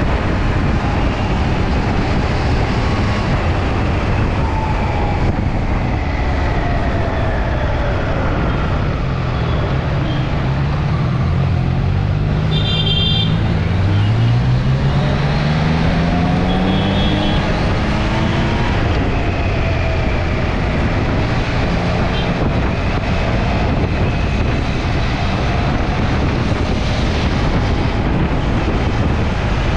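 Motorcycle riding at road speed, with heavy wind rumble on the microphone over the engine. About halfway through, the engine's pitch climbs steadily as the bike accelerates, and a brief high beep sounds.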